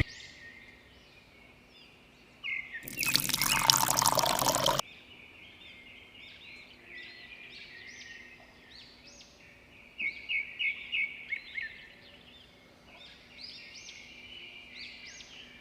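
Small birds chirping repeatedly, with a quick run of louder chirps about ten seconds in. About three seconds in, a loud rush of noise lasts about two seconds.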